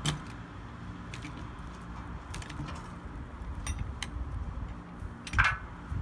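Scattered metal clinks and knocks from handling a log on a portable sawmill's steel bed, with one louder clank about five and a half seconds in, over a low rumble.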